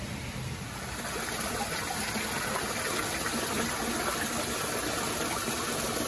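Steady rush of running water, a little louder from about a second in.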